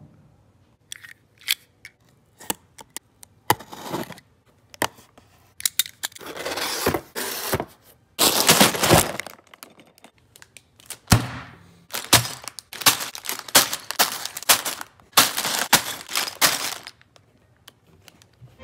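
A Lego set's cardboard box being opened by hand: sharp cracks and tearing as the box tabs and flaps give, then crinkling and rustling of the sealed plastic bags of bricks as they are pulled out, in repeated spurts from about six seconds in.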